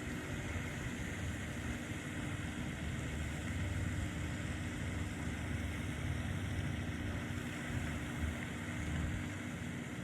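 Steady outdoor noise: wind buffeting the microphone in a fluctuating low rumble, over a faint steady hum.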